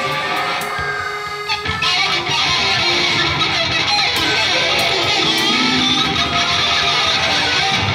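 Free-jazz ensemble improvising in a dense, busy texture, plucked strings to the fore: electric guitar and balalaika, with accordion, keyboard and a small wind instrument.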